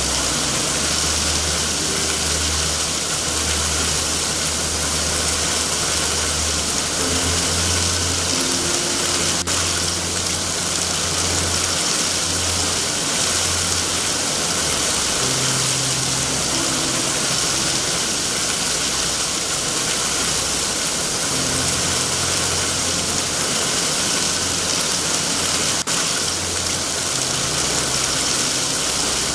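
Steady heavy rain, an even hiss, with a low rumble underneath that swells and fades. Two faint sharp clicks come about nine and twenty-six seconds in.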